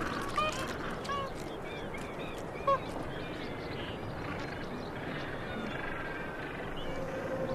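Ambience of a gentoo penguin colony: many short, high chirping calls over a steady background hiss, with one louder short call about two and a half seconds in.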